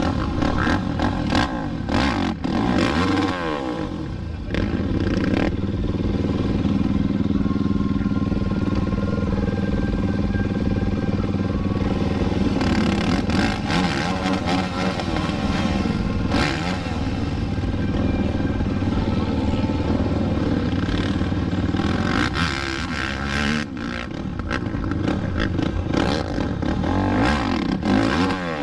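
Sport quad (ATV) engines revving up and down, their pitch rising and falling with the throttle, with scattered sharp knocks.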